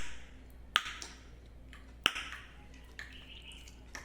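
Alveolar tongue clicks: the tongue tip is sucked against the ridge behind the upper front teeth and snapped away by negative pressure. A handful of sharp pops come roughly once a second.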